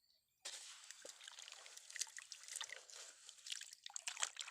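Water trickling and splashing in small crackles as wet sand is washed out of a toy dump truck. It starts about half a second in and stays faint.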